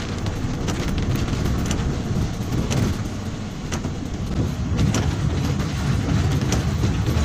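A vehicle driving along a wet, rough road, heard from inside the cab: a steady low rumble of engine and tyres on the wet surface, with scattered light clicks and rattles.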